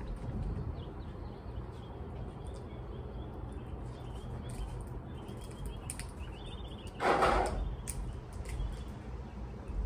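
Fingers picking apart boiled blue crab shells, giving small cracks and clicks, with faint bird chirps in the background. A brief louder rush of noise comes about seven seconds in.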